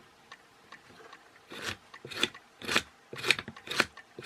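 Electric car door lock actuator cycling a sliding bolt back and forth, a short rasping buzz about twice a second, starting about a second and a half in.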